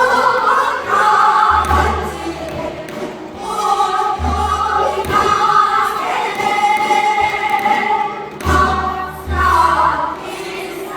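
Korean folk singing, with voices in sung phrases over repeated low drum-like beats.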